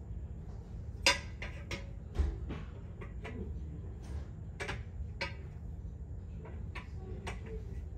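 Metal bed-frame rails clinking and clanking as they are handled and fitted together, a series of irregular sharp metallic knocks. The loudest comes about a second in, and a dull thud follows a second later.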